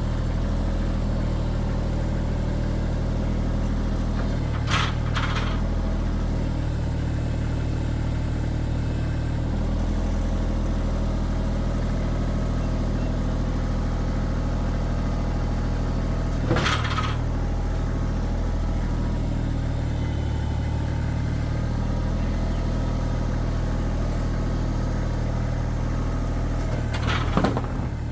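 An engine running steadily at an even speed, with three brief sharp sounds standing out above it, the last near the end.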